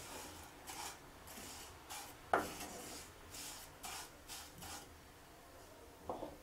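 Wooden spatula stirring and scraping vermicelli roasting in ghee around a non-stick kadai: a run of short rasping strokes with a sharp knock about two and a half seconds in. The strokes stop about five seconds in, and one lighter knock comes near the end.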